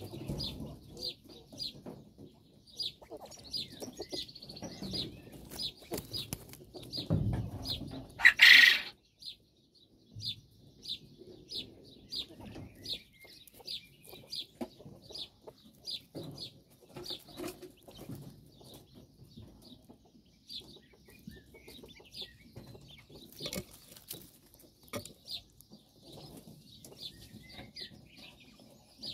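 Japanese quail giving a steady run of short, high peeps, several a second, over low rustling. About eight seconds in there is one much louder burst.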